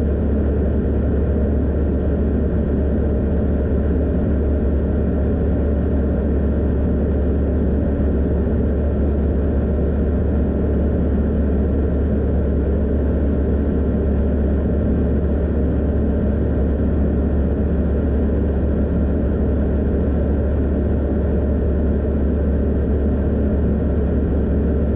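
Steady drone of a Van's RV-12iS light aircraft in cruise flight: its Rotax 912 iS engine and propeller running at constant power, deep and unchanging.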